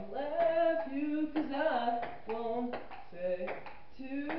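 A pop song with a singing voice, with sharp clicks of a table-tennis ball striking paddles and the table now and then.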